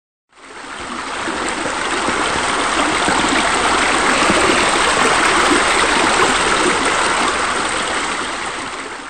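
Steady rush of running water, like a pool fountain or spillway, fading in at the start and fading out near the end.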